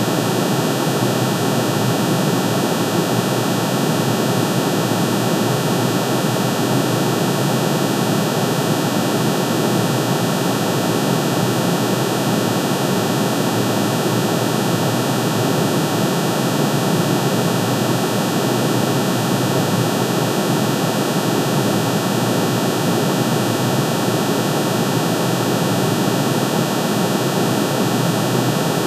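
Synthesized tone of aluminium's atomic spectrum: many sine waves, one for each spectral line, shifted into the audible range and summed. The result is a steady, dense hiss-like drone that does not change.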